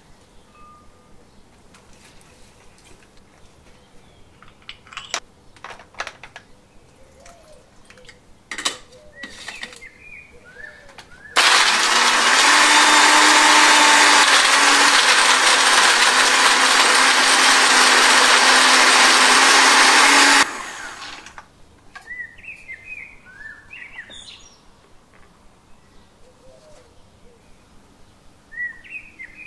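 Blender grinding chopped raw green mango, mint, coriander and green chilies into a smooth chutney. The motor starts suddenly about eleven seconds in, runs loud and steady for about nine seconds with a low hum under the grinding, and cuts off abruptly.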